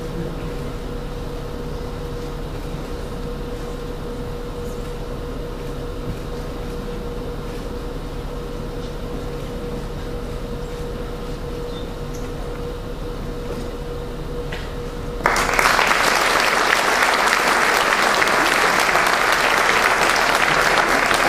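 Audience applauding, starting suddenly about fifteen seconds in and carrying on steadily. Before it there is only quiet hall noise with a thin steady hum.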